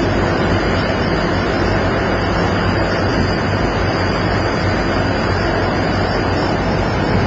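Steady low machinery hum under a constant wash of wind and sea noise, as heard offshore during a personnel basket transfer.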